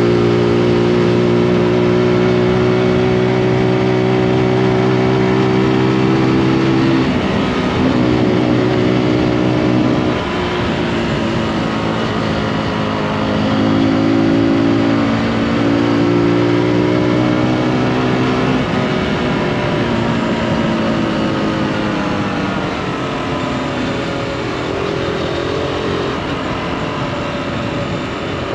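Zontes G155's single-cylinder four-stroke engine heard from the rider's seat while riding. It holds a steady note under throttle at first, drops away about a quarter of the way in, then rises and falls with the throttle several times, running softer through the second half.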